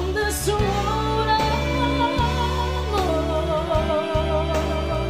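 A woman singing a slow ballad, holding long notes with wide vibrato over a sustained instrumental accompaniment.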